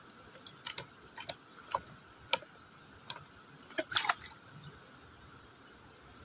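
Irregular sharp clicks and crackles of a clear plastic bottle being handled, the densest cluster about four seconds in, over a steady high hiss.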